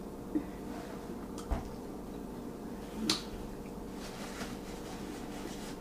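Three or four short wet clicks and smacks of a mouth chewing, the loudest about three seconds in, over a steady low hum.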